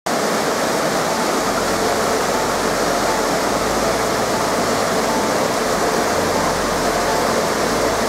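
River water rushing over rocks and down a small waterfall, a steady, even rush.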